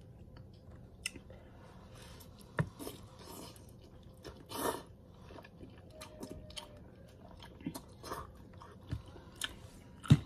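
A person chewing spicy noodles: soft wet mouth clicks and smacks at irregular intervals, with a longer breathy sound about halfway through.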